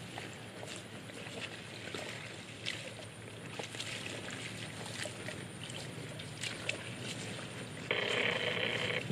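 Water buffalo grazing in shallow floodwater: grass tearing and crunching with small splashing steps in wet ground. Near the end a louder steady buzz cuts in for about a second.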